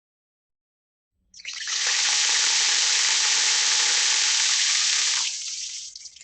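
A water tap turned on: water runs at full flow for about four seconds, then the flow drops sharply as the tap is closed, leaving a weak trickle and drips near the end.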